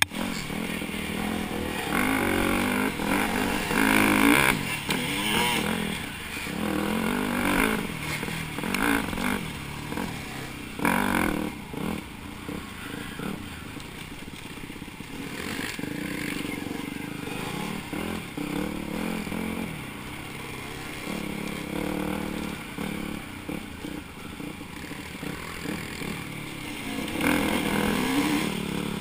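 Dirt bike engine heard from the rider's helmet, its revs rising and falling with the throttle over a rough trail. There are louder bursts of throttle about four seconds in, at about eleven seconds and near the end, with the bike rattling over the ground.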